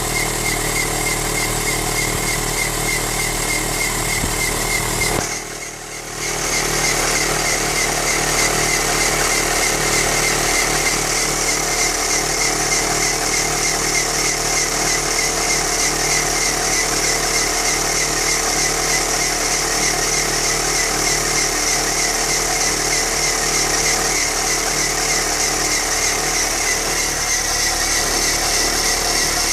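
Chevrolet Chevy C2 four-cylinder engine running with a high, wavering squeal over it, which the owner says goes away once the engine warms up. The sound drops briefly about five seconds in, then carries on steadily.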